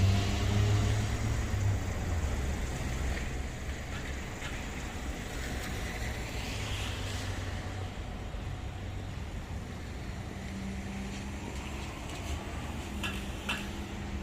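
Steady low rumble of a road vehicle running, with a couple of short clicks near the end.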